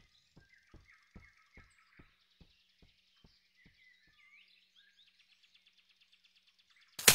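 Quiet forest ambience with faint bird chirps and a run of soft, light taps that slow and fade out over the first four seconds. A loud, sudden burst of sound cuts in at the very end.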